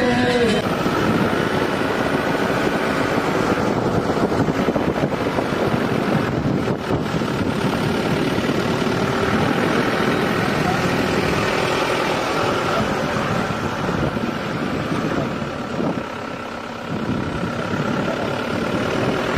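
Car driving along a road: steady engine and road noise, easing off briefly about 16 seconds in.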